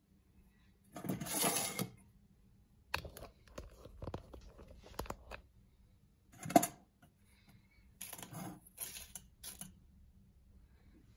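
Boiled eggs and their broken shell being handled by hand: several short spells of crackling and rustling with small clicks. One sharp knock, the loudest sound, comes about six and a half seconds in.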